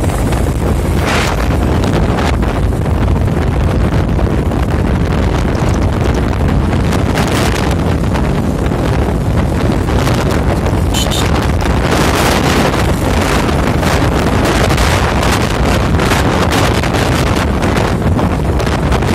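Wind rushing over the microphone of a motorcycle riding at speed, with road and engine noise beneath, loud and steady throughout.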